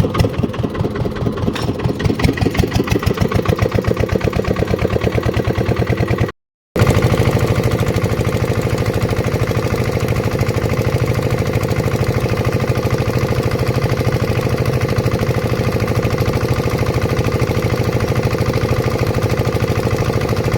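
Power boat's engine running with a fast, even beat. There is a brief break about six seconds in, after which it runs louder and steadier.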